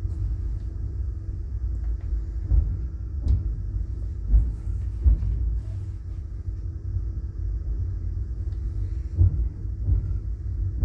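Steady low rumble of a passenger train car rolling slowly, with a faint hum and a few dull knocks.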